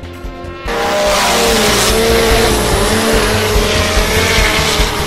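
A snowmobile engine comes in suddenly less than a second in, running hard at high revs with its pitch wavering up and down, over background music with a steady beat.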